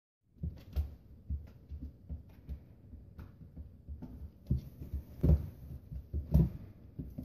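Alaskan Malamute puppy's paws thudding and claws clicking on a hardwood floor as it spins after its tail: irregular soft thumps and taps, with two heavier thumps in the latter half.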